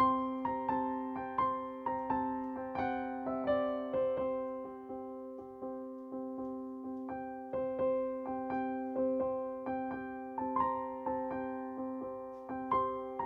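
Background music: a slow, gentle piano melody of single struck notes, about two a second, over a held chord.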